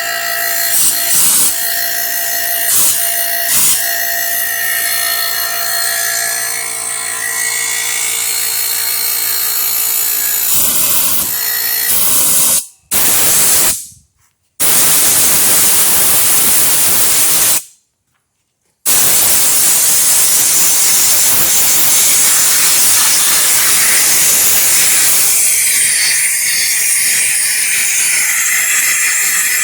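A steady mechanical whine of several tones with a few short knocks, then long loud hissing blasts of air blowing dust out of a computer case, cut off abruptly a few times.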